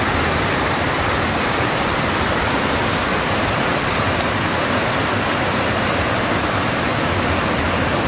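Fast-flowing waterfall cascading over sloping rock slabs: a steady, loud rush of water.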